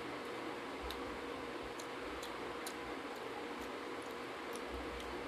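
Light, wet ticks from fingers mixing rice and curry on a metal plate, coming every half second or so over a steady hiss and a faint hum.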